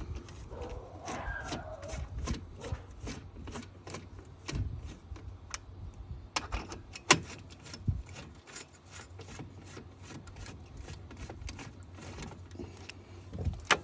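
Hand tools and loose bolts working on metal: irregular clicks, clinks and scraping, with one sharp clank about seven seconds in.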